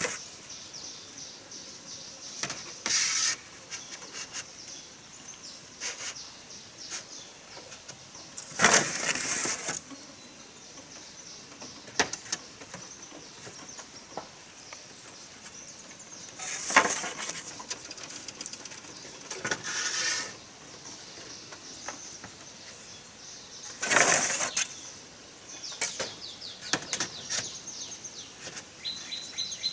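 Bursts of rustling or scraping, each about a second long, come every few seconds, with scattered sharp knocks between them, over a steady high hiss. A thin steady high tone starts near the end.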